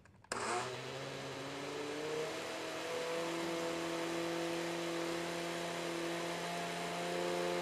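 Countertop blender switching on with a sudden start and running steadily, blending thick banana and oat-flour pancake batter; its motor pitch shifts a couple of times in the first few seconds as the batter churns.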